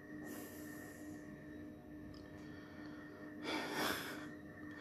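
A person breathing near the microphone: a soft breath near the start, then a louder sniff or nasal exhale about three and a half seconds in, over a faint steady electrical hum.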